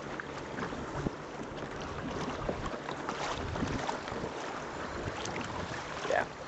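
Water rushing and splashing along a sailboat's hull as it sails, with wind buffeting the microphone. A short rising squeak comes near the end.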